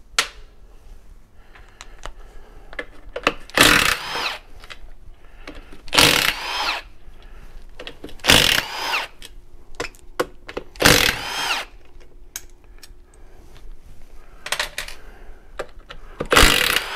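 Milwaukee cordless driver spinning out the 10 mm tail-housing bolts of a Jeep Wrangler transfer case. It runs in five short bursts, each a rising whine as the motor spins up, with small metal clicks in between.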